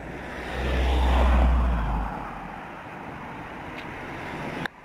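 A car passing by on the road: tyre and engine noise swells to a peak about a second in, with a low rumble, then fades away. Lower traffic noise follows until the sound cuts off suddenly near the end.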